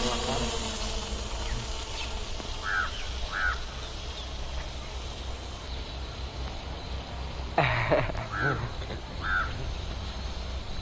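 Birds calling outdoors: short high calls in pairs, with one louder, harsher call near the end, over a steady low rumble.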